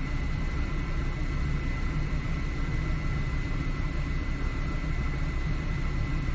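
Steady low vehicle-engine rumble, like an engine idling, with a thin steady high tone running alongside.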